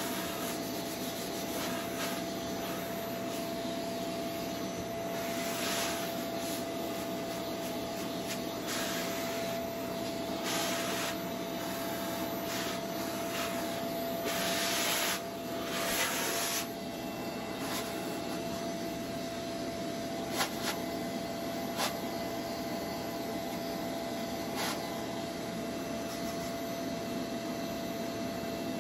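Vacuum cleaner running steadily while its hose nozzle is drawn over a freshly sanded windowsill, sucking up the sanding dust. Louder rushes of suction and scraping come each time the nozzle is pushed along the sill, the biggest about halfway through, with a few sharp clicks later on.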